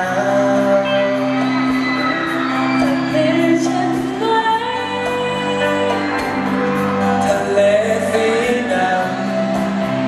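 A woman and a man singing a pop duet live into microphones over amplified band backing, with the echo of a large hall.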